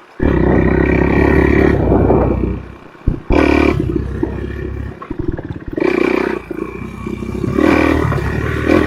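Enduro motorcycle engine revving hard for about two and a half seconds, dropping off, then picking up again in short throttle bursts every second or two.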